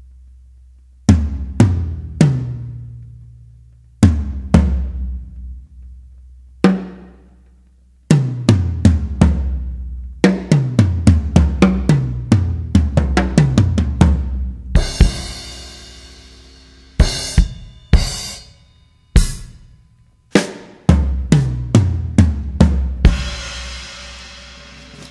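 A drum kit playing a solo in a music track: single deep drum hits that ring out, then a fast run of drum strokes about a third of the way in, with cymbal crashes past the middle and again near the end.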